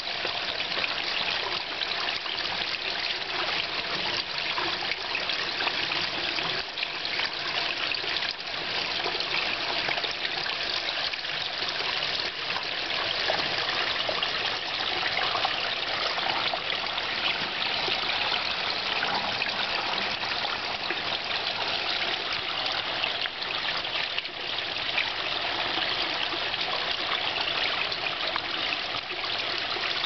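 Small garden-pond waterfall: water trickling steadily down a wall of stacked rocks into the pond.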